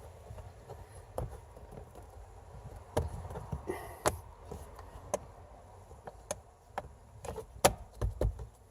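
Scattered plastic clicks and knocks from handling the 2017 GMC Acadia's glove box and dash trim pieces, with a few sharp taps, the loudest ones in the second half.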